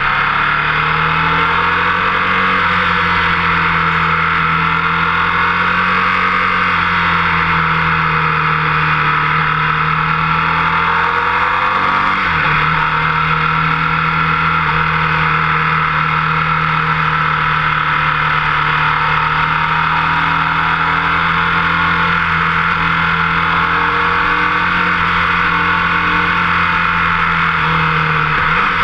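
Motorcycle engine running hard at track speed, held at a steady pitch, with brief dips in pitch about twelve seconds in and again near the end.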